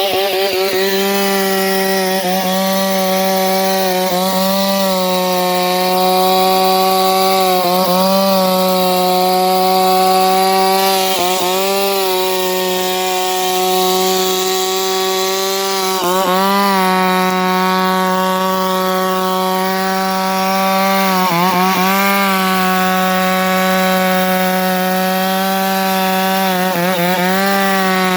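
Two-stroke chainsaw running at high revs, cutting wood, its pitch dipping briefly every few seconds.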